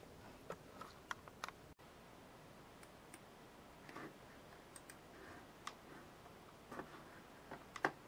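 About a dozen faint, irregularly spaced clicks of a computer mouse over a low steady hiss, the loudest coming near the end.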